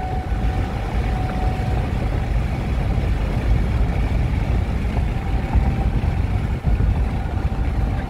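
Steady low rumble of a moving car's road and engine noise, heard from inside the cabin.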